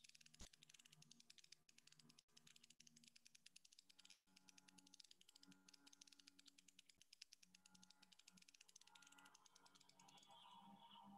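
Near silence: room tone with faint, rapid clicking.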